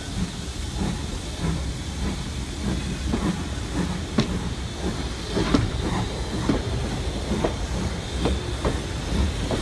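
Steam train carriages running on the track, heard from a carriage window: a steady low rumble and hiss, with sharp clicks of the wheels over the rails at uneven intervals, coming thicker from about three seconds in.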